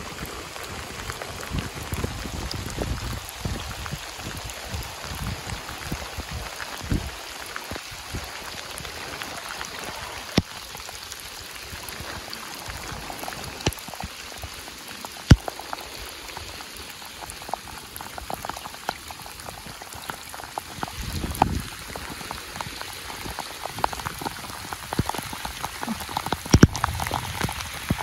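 Rain falling steadily onto a river surface: a dense, even patter of drops, with a few sharper ticks of drops landing close by, the loudest about halfway through.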